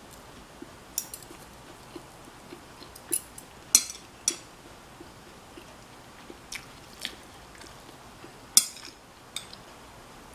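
A person eating crispy fried chive pancake (buchu-jeon): about eight sharp crunches from bites into the crisp crust, the loudest nearly four seconds in and near the end, over steady chewing about twice a second.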